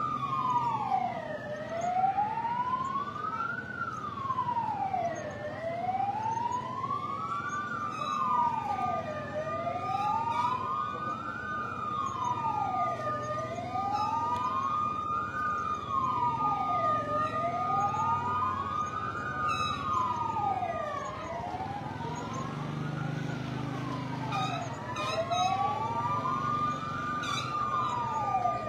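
Emergency-vehicle siren wailing, its pitch slowly rising and falling about once every four seconds, with a second steady siren tone held over much of it. A low rumble lies underneath.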